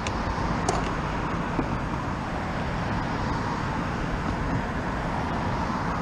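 Honda Valkyrie's flat-six engine idling steadily at a stop, with city cars and taxis driving past.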